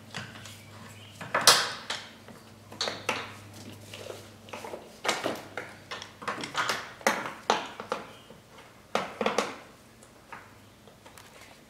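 Irregular metallic clinks, clanks and rattles of hands and tools working parts against a car's firewall as a hydraulic clutch master cylinder and its hose are fed through and bolted in. The loudest clank comes about a second and a half in.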